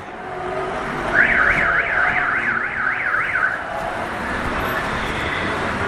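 Car alarm siren warbling rapidly up and down, about three sweeps a second, starting about a second in and stopping after roughly two and a half seconds, over steady street traffic noise.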